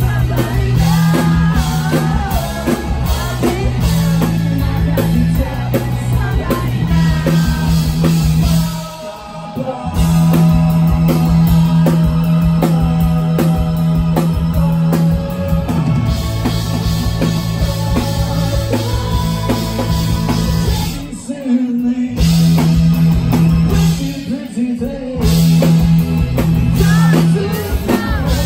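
Live rock band playing loud through a venue PA: electric bass, drum kit and a singing voice. The band breaks off briefly twice, about nine seconds in and about twenty-one seconds in, before coming back in.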